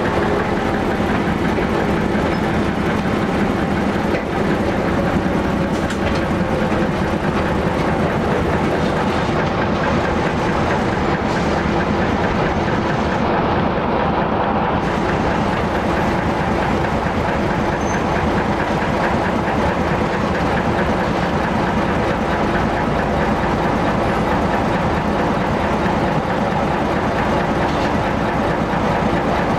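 Walker diesel railmotor running steadily along the track, heard from inside its cab: the engine's drone under the rumble of the wheels and body.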